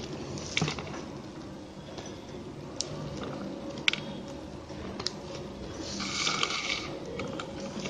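Plastic basket-weaving wire being handled and threaded through a woven handle: scattered light clicks and ticks, then a longer scratchy rustle about six seconds in as a long strand is drawn through and pulled tight.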